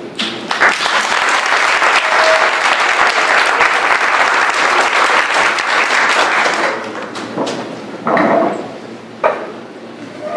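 Audience clapping for about six seconds, then the clapping thins out and fades away.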